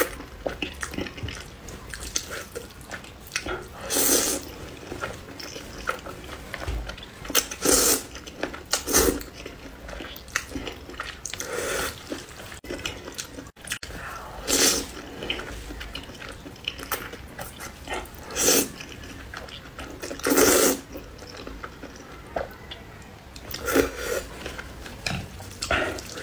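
A person slurping up mouthfuls of spicy noodles eaten with chopsticks, close to the microphone: about ten loud wet slurps a few seconds apart, with quieter chewing and mouth sounds between them.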